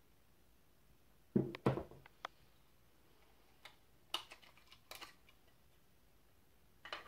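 Handling knocks and clicks of a Kiev medium-format camera's TTL prism finder and camera parts: two louder knocks about a second and a half in, a scatter of lighter clicks and taps, and another knock near the end.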